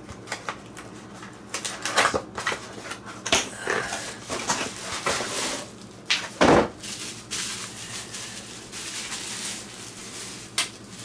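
Hands opening a flat cardboard box: cardboard flaps scraping and rustling, with several sharp knocks and one louder thump about six and a half seconds in.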